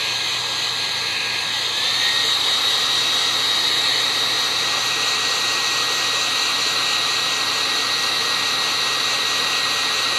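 Handheld hair dryer running on a steady high setting: a loud, even rush of air with a thin motor whine that steps up slightly in pitch about two seconds in.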